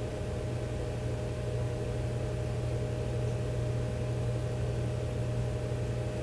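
Steady low machine hum with a thin higher tone and hiss, unchanging throughout: room background noise such as a fan or air conditioner.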